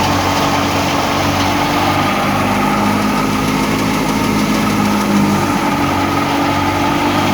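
Wheat harvesting machine running: a steady engine drone with a low, even throb and a constant rushing noise over it.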